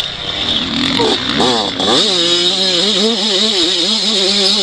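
Yamaha YZ85 two-stroke motocross bike engine revving up sharply about a second in, then running at high revs with its pitch wavering up and down as the throttle is worked, over a loud steady rushing hiss.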